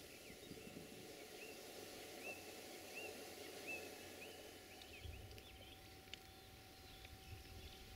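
Faint outdoor quiet with a small bird repeating a short, high chirp about every three-quarters of a second through the first half, then a few faint ticks.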